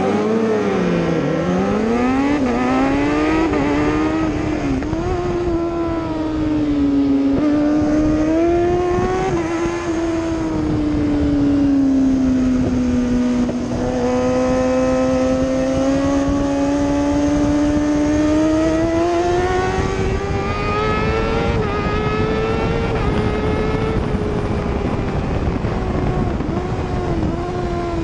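Onboard sound of a Kawasaki 600-class race bike's engine at race pace, its note rising and falling with throttle and gear changes, over steady wind rush. In the first few seconds other bikes' engines sound around it.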